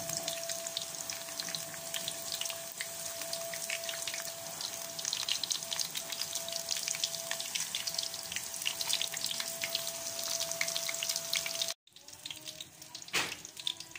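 Samosas deep-frying in hot oil: a steady sizzle dotted with many small crackling pops, with a faint steady tone running alongside. About three-quarters of the way through, the sound cuts out for a moment and the sizzle comes back quieter.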